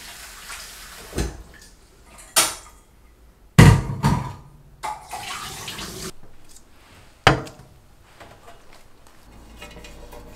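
Dishes and utensils knocking and clattering at a kitchen sink, with sharp knocks every second or so. Water from the tap runs for about a second just past the middle.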